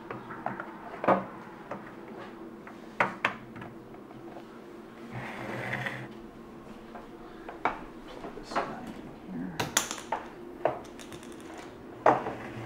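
Scattered clicks and knocks of a power cord being fitted to a coffee roaster and handled, with a short rustle about five seconds in and a sharper click near the end.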